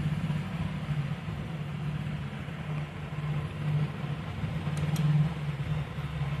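A machine running with a steady low hum, with two faint clicks about five seconds in.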